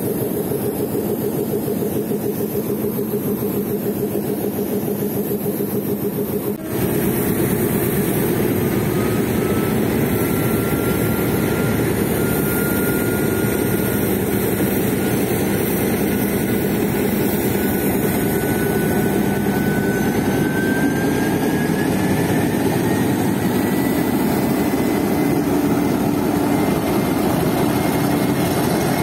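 Diesel-electric engine of a Sri Lanka Railways Class M4 locomotive (no. 751) running steadily close by, then, after a cut about seven seconds in, working as the locomotive moves along the platform. Over it, a thin whine slowly rises in pitch.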